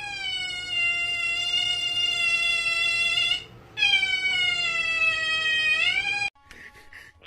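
A cat yowling in two long drawn-out meows. The first is held for about three seconds and sags slightly in pitch; the second rises at its end. The yowling cuts off abruptly about six seconds in.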